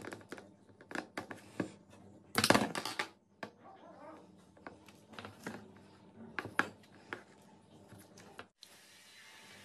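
Pliers and small slingshot parts being handled: irregular clicks, scrapes and rustles, with a louder clatter about two and a half seconds in. Near the end the handling stops and only a steady faint hiss remains.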